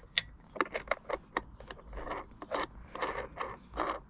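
A metal nut being spun by hand down a bolt at the steel floor rail of a bed frame: a run of short scrapes and clicks, some a little longer near the middle.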